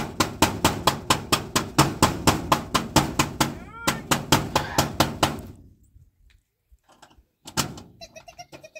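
Rapid, even knocking strikes, about four a second, stopping about five and a half seconds in.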